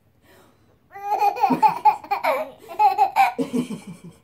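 Baby laughing in high-pitched squeals and giggles, starting about a second in and lasting about three seconds.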